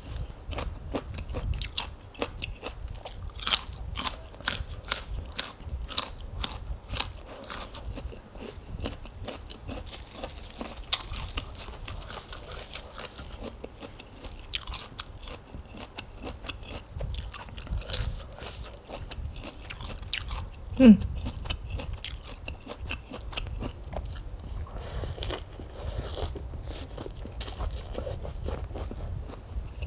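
A person chewing and crunching mouthfuls of spicy noodle salad and crisp raw lettuce close to the microphone. A quick run of sharp, crisp crunches comes a few seconds in, and there is a short hummed 'mm' about two-thirds of the way through.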